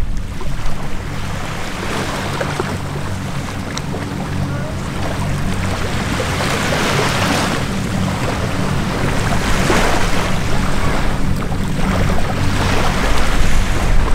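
Steady low drone of a formation of propeller aircraft flying past, overlaid by noisy swells that grow louder in the second half.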